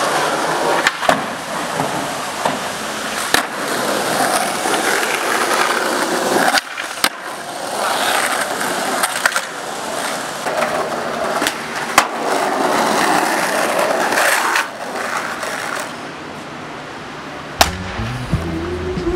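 Skateboard wheels rolling over pavement in a steady grinding rumble, broken by a handful of sharp clacks as the board slaps down on the ground.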